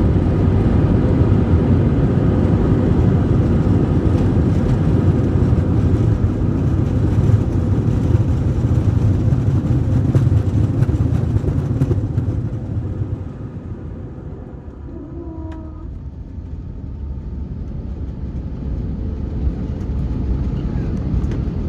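Airbus A321 cabin noise on the landing roll: a loud, steady rumble of the engines and the wheels on the runway. About two-thirds of the way through it drops off sharply as the aircraft slows, then builds slightly again.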